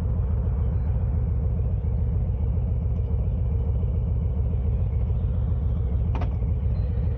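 Steady low rumble of a vehicle on the move, engine and road noise with a steady hum, picked up by an external microphone in a windsock; a short click about six seconds in.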